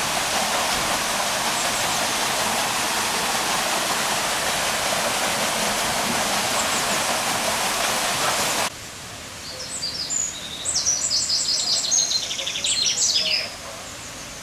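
Water rushing and splashing through a wooden mill waterwheel, a steady loud rush that cuts off suddenly about nine seconds in. After it, a small bird sings a run of quick high chirps and trills for about four seconds.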